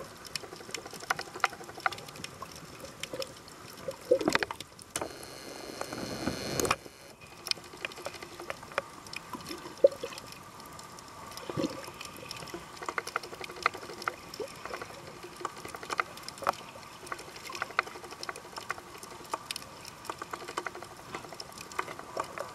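Underwater sound picked up by a submerged camera: scattered sharp clicks and crackles over a low wash of water noise. About four and a half seconds in, a louder rushing hiss runs for about two seconds and cuts off suddenly.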